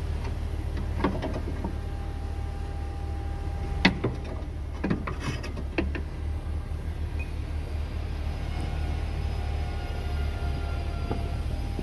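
Metal clanks and knocks as a Lexus GS350's electric power steering rack is worked free from under the car and handled, over a steady low hum. There are a few sharp knocks, the loudest about four seconds in.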